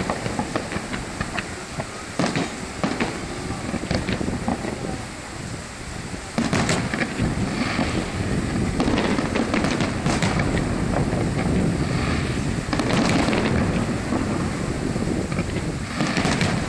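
Aerial fireworks display: shells bursting in a rapid, irregular series of bangs over a continuous rumble. The bangs grow denser and louder about six seconds in.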